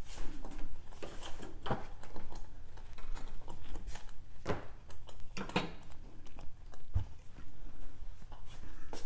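Kitchen handling noises: scattered knocks and clatter as a saucepan of barbecue sauce is fetched from the stove and set down on the counter, with the firmest knock about seven seconds in, over a steady low hum.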